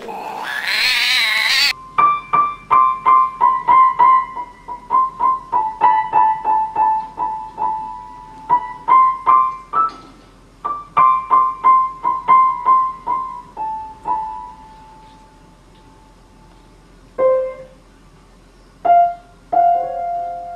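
Opens with a loud, noisy burst of about a second and a half, then a cat pawing at piano keys: single high notes struck one after another, mostly the same few notes repeated, each ringing briefly. The notes thin out after about fourteen seconds, and a few lower notes ring on near the end.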